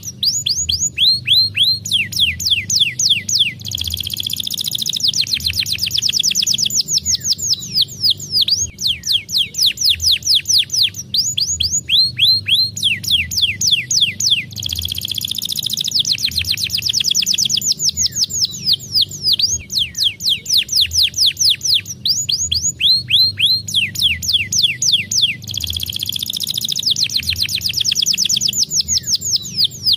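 Domestic canary singing: fast trills of repeated downward-sweeping whistled notes alternating with buzzier rolled passages. The same sequence of phrases comes round about every eleven seconds, as a looped lure song played to get silent canaries singing.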